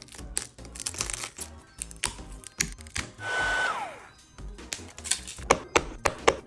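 Background music over a string of small clicks and taps, with a short hissing blast about three seconds in that ends in a falling tone.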